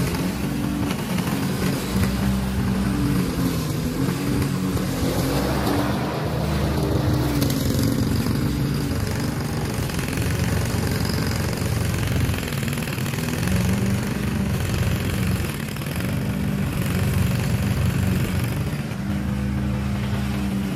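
Honda walk-behind lawn mower's single-cylinder four-stroke engine running steadily while it cuts through tall, overgrown grass.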